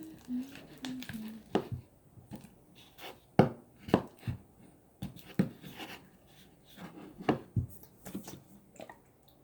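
A utensil stirring thick slime in a bowl: irregular knocks and scrapes against the bowl as the mix stiffens with activator.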